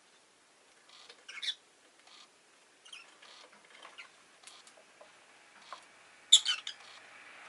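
Rosy-faced lovebird chirping: a few short high chirps about a second and a half in, soft ticks and clicks between, and a louder burst of sharp calls near the end.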